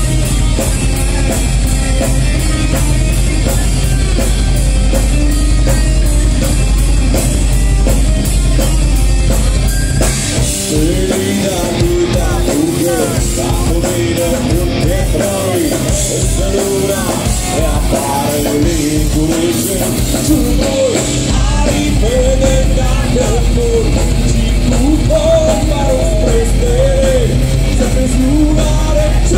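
Folk metal band playing live, heard from the crowd: distorted electric guitars, bass and fast, dense drumming. From about ten seconds in, a sung vocal line comes in over the band.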